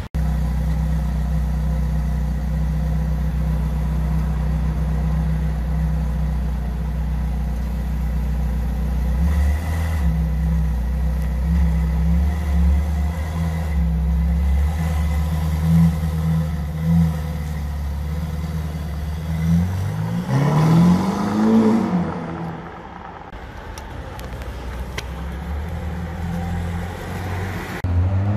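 A sports car's engine idling with a steady low rumble, then revved once about twenty seconds in, the pitch rising and falling back within a couple of seconds before it settles to a quieter idle.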